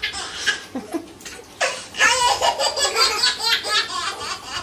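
Young children laughing hard in bursts, with one long run of rapid laughter from about a second and a half in to nearly four seconds.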